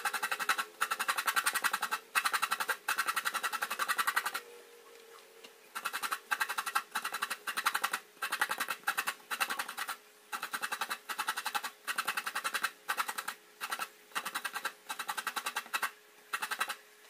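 Half a coconut being grated by hand on the serrated metal blade of a wooden coconut grater bench, a rapid rasping scrape. It scrapes steadily for about four seconds, pauses briefly, then goes on in short strokes a little more than once a second.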